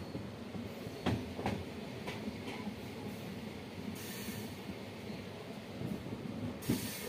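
Passenger train running along the track, heard from its open doorway: a steady rumble of wheels on rail, two sharp clicks about a second in, and short bursts of hiss near the middle and at the end.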